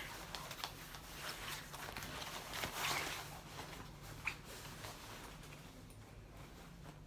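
Handling noises: scattered rustles and light clicks, with a louder rustle about three seconds in and a sharp tick a little after four seconds, over a low steady hum.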